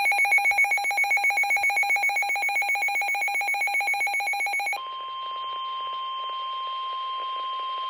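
Emergency alert tones: a loud, rapidly pulsing electronic tone for nearly five seconds, then a steady single-pitch alarm tone of the kind sounded by weather radio ahead of a tornado warning message.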